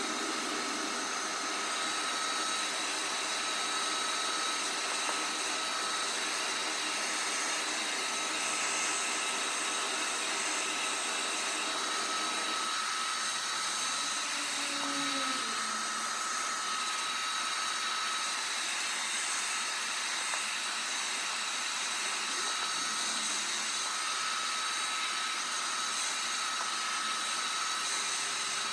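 Hair dryer blowing steadily, a continuous rush of air with a steady high whine from its fan motor.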